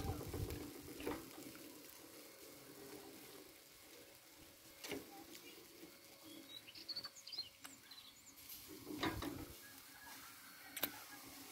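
Faint sizzling and occasional crackles from a whole sheep roasting on a spit over hot coals, with a few short bird chirps about seven seconds in.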